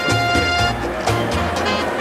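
Background music with a steady beat and a bass line; a held note stops just under a second in.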